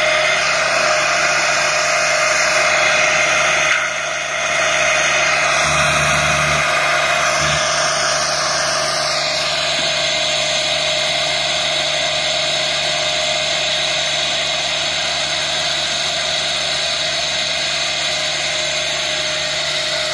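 A tractor-mounted two-drum mower driven from the tractor's PTO, running with the tractor's engine while cutting tall grass. It makes a steady mechanical whine, with a brief dip about four seconds in.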